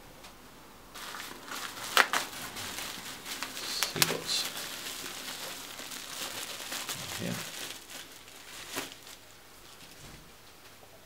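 Bubble-wrap bag crinkling and rustling as it is handled and opened, with a few sharp crackles, the loudest about two seconds in.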